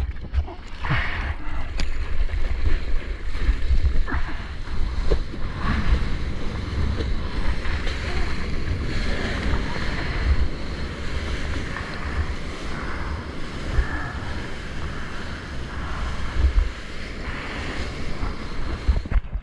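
Seawater rushing and splashing around a surfboard as it is carried along in small whitewater, with heavy wind rumble on the microphone.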